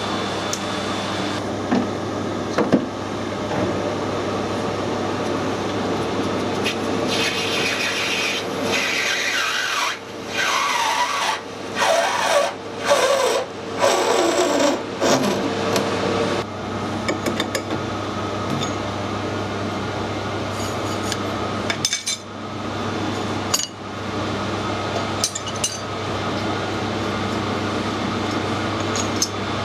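Metal hand work on a small brass part: a run of separate rasping, rubbing strokes in the middle, over a steady workshop machine hum. A few sharp clicks come near the end.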